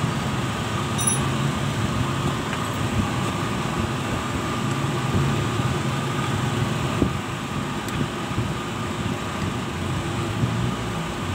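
Steady drone of running machinery, with a few light metallic clicks about a second in and again near the end as a wrench works on a terminal nut.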